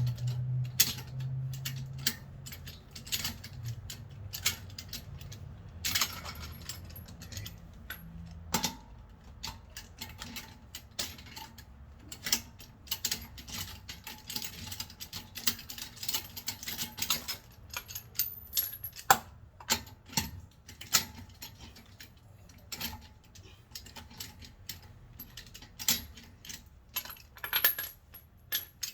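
Irregular metallic clicks and clinks of a socket wrench and loosened lug nuts as a car's front wheel is being taken off.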